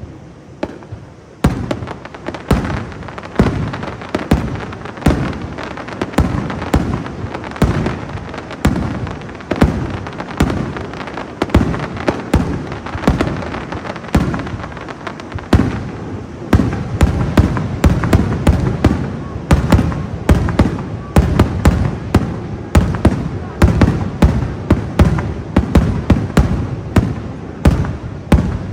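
Aerial fireworks exploding in a rapid barrage, several bangs a second with echoing tails. After a brief lull at the start the bangs come thicker and louder through the second half, like a finale.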